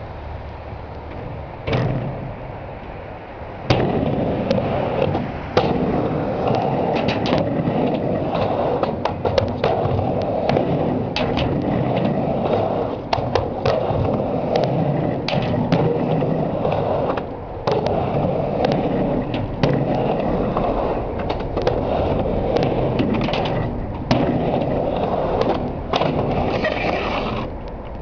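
Skateboard riding a mini ramp: wheels rolling back and forth, starting about four seconds in, with many sharp clacks and knocks of the board and trucks hitting the ramp and coping. The rolling stops shortly before the end.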